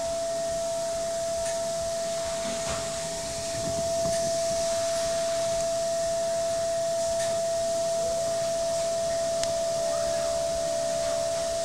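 High-speed spindle of a DATRON CNC milling machine running with a steady high whine over the hiss of coolant spray, during 5-axis machining of a small metal part. The hiss gets a little louder about four seconds in.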